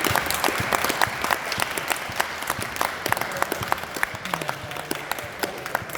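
Audience applauding, the claps dense at first and thinning out toward the end.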